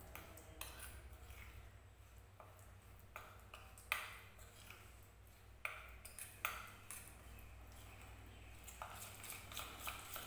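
Steel spoon stirring a thick herbal paste in a small steel bowl: faint scraping with irregular light clinks of spoon on bowl, the sharpest about four seconds in.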